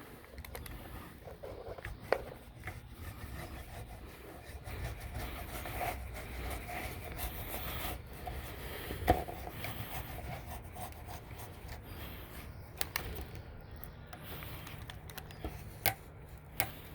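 Spline being pressed with a roller into a screen door frame's channel over heavy-duty pet screening: continuous rubbing and scraping with a few sharp clicks, the loudest about nine seconds in, over a low steady hum.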